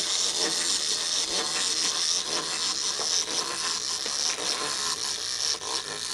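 Wind-up tin-style toy robot (an Astrobot Miner) walking on a wooden tabletop: its clockwork motor runs with a steady, rapid rattling whir.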